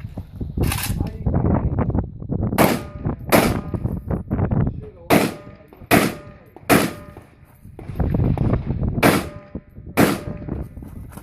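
Eight rifle shots fired in uneven groups during a practical rifle stage: one about a second in, a pair, a quick run of three in the middle, and a pair near the end.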